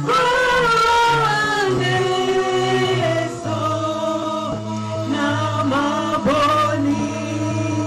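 Church choir singing a gospel song.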